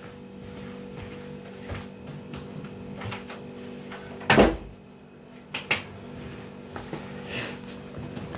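Household knocks and clunks from someone moving about out of sight: a few light taps and one louder thud about four seconds in, followed by two smaller knocks, over a steady low hum.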